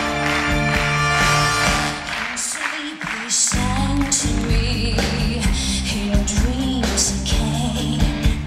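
A live band playing, with the bass and drums dropping out for about a second partway through before the full band comes back in. A woman's singing voice carries over the band in the second half.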